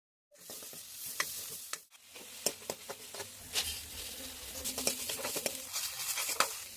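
Food sizzling in hot oil in a pan, with a utensil clicking and scraping against the pan as it is stirred. The sound starts suddenly a moment in and briefly drops out just before the two-second mark.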